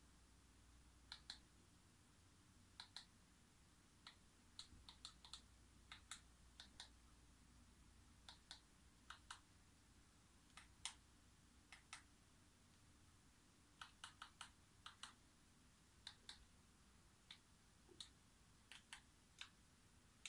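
Faint, irregular clicks of remote-control buttons being pressed to navigate a TV box's menus, many coming in quick pairs.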